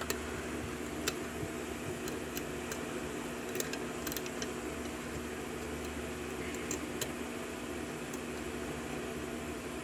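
Faint, irregular clicks of a lock pick and tension tool working the pins of a 6-pin LSH euro cylinder during single-pin picking, over a steady background hum.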